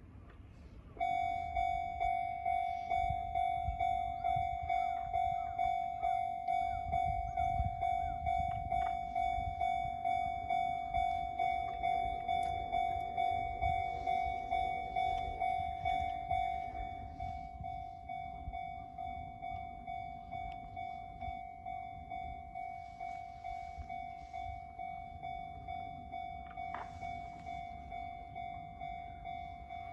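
Japanese railway level-crossing alarm starting about a second in: a steady electronic ding repeating about twice a second, warning that a train is coming. It drops somewhat in level about halfway through, over a low background rumble.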